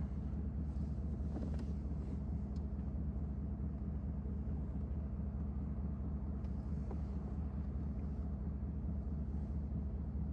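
Steady low hum of a car idling, heard from inside the cabin, with a few faint light ticks.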